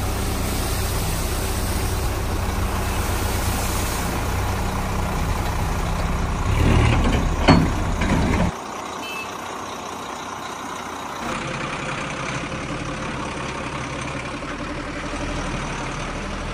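Heavy truck engine running steadily, swelling with a sharp, loud burst about seven and a half seconds in. It then cuts off abruptly, and a quieter, lighter engine noise runs on.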